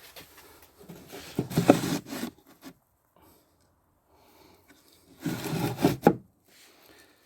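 Wooden cage parts being handled, rubbing and scraping against each other in two short spells, the second ending with a sharp knock.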